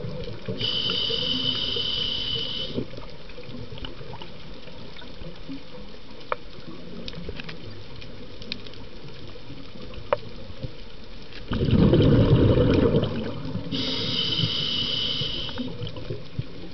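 Scuba diver breathing through a regulator underwater: a hissing inhale near the start, a long quieter stretch with a few faint clicks, then a loud bubbling exhale about twelve seconds in, followed by another hissing inhale.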